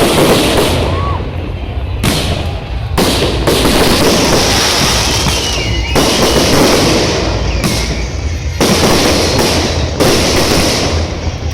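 Fireworks display: a dense, continuous run of bangs and crackling from bursting shells, with fresh volleys about every one to two seconds and a few faint whistles.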